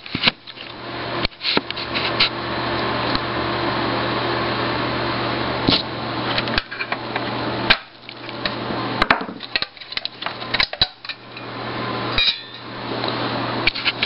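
Scattered clicks, taps and scrapes of a small tool and hands working the plastic and metal parts of an LCD monitor loose during disassembly, over a steady low hum.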